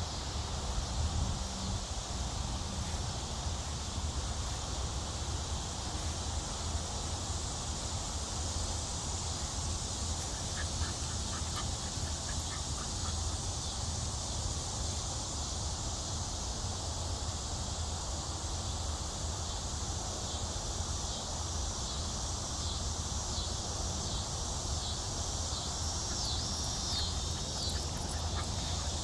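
Steady outdoor background noise with a low hum and faint high chirps, mostly near the end.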